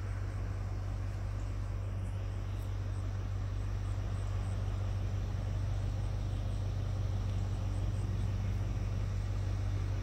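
Steady low rumble of outdoor background noise, with faint insect chirps repeating high above it.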